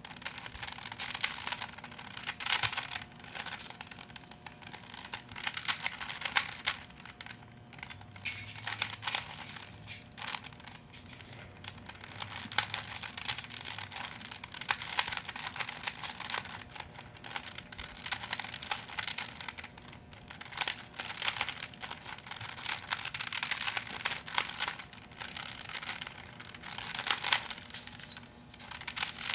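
Rubik's cube with LEGO 2x2 tiles glued to its faces being turned layer by layer during a solve: quick plastic clacking and scraping in bursts of turns with short pauses between them. The cube turns stiffly.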